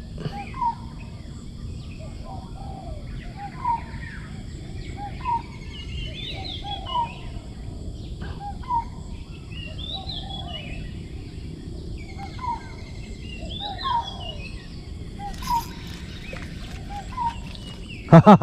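Birds calling outdoors: a short call repeated about every second and a half, and a higher rising call every four seconds or so, over steady low background noise.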